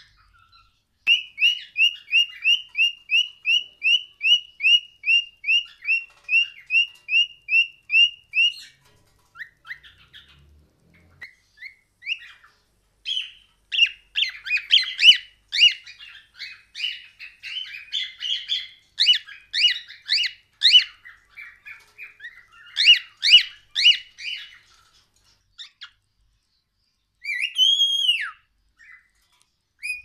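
Pet cockatiels whistling. First comes a fast run of short, identical whistle notes, about three a second, for several seconds. After that comes a busy jumble of chirps and whistled notes, and near the end one long whistle that rises and then falls.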